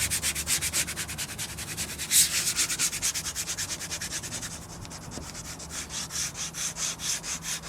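Squeegee rubbed in quick short strokes over the pre-mask of a vinyl window decal, a rapid scratchy rasp at about six strokes a second, pressing the vinyl onto the glass so it adheres. The strokes ease for a moment about halfway through, then pick up again.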